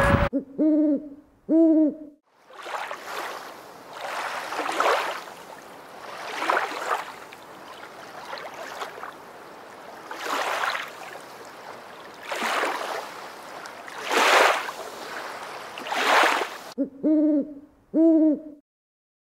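Low hooting calls, two in quick succession at the start and two more near the end, with a washing noise between them that swells and fades about every two seconds.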